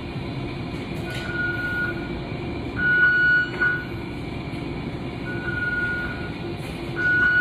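Hospital bedside equipment alarm beeping: a single high tone just under a second long, sounding four times at gaps of about two seconds, over a steady hum of room and equipment noise.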